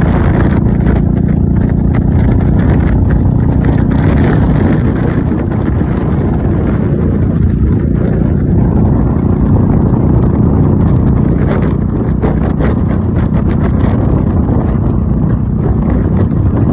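Royal Enfield Meteor 350's single-cylinder engine running at a steady cruising pace while riding, mixed with heavy wind and road rumble.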